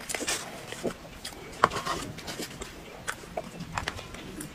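Close-miked eating sounds: chewing and wet mouth noises, with scattered small clicks and taps from a spoon and a paper cake box.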